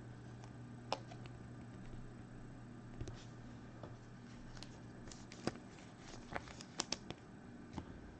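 Quiet, scattered clicks and light taps of trading cards being handled and sorted from a freshly opened pack, over a faint steady low hum; the clicks come closer together in the second half.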